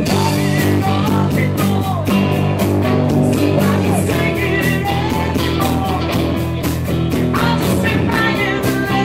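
Rock band playing live: a woman singing lead over electric guitars, bass and a steady drum beat.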